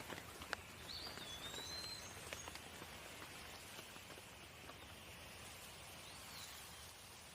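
Steady rain falling, a soft even hiss with scattered sharp drips. A bird gives two short whistled calls, one about a second in and another near the end.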